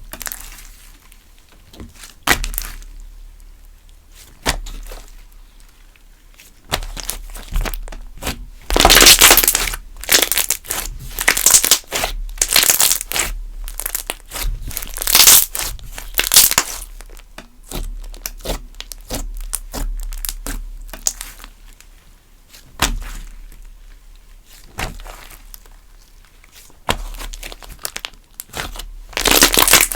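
Thick glossy slime being squished and stretched by hand, giving irregular wet crackles and pops in bursts, loudest and densest in the middle.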